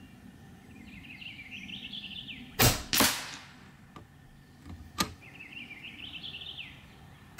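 A .22 Hatsan Factor RC Sniper Long PCP air rifle fires once about two and a half seconds in: a sharp crack, then about half a second later the smack of the pellet hitting the target. A short click comes near five seconds in, a bird warbles twice in the background, and the next shot cracks right at the end.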